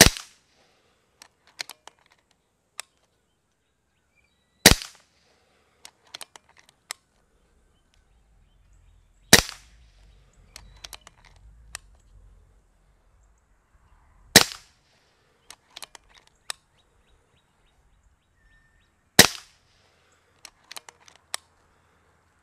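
Kral Puncher Breaker .22 pre-charged pneumatic bullpup air rifle firing five shots, one about every five seconds, each a sharp crack. Clusters of small clicks come between the shots.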